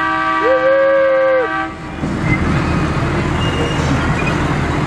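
The miniature train's whistle blows one steady chord of several tones for under two seconds, with a person's voice joining in with a 'woo'. Then the rumble and clatter of the train running on its track.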